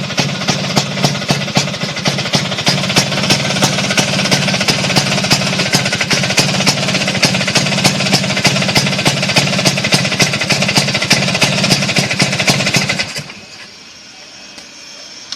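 Vespa scooter's two-stroke engine running through a bulging expansion-chamber exhaust with an R9 silencer taken from a Kawasaki Ninja, pulsing steadily. It cuts off suddenly near the end.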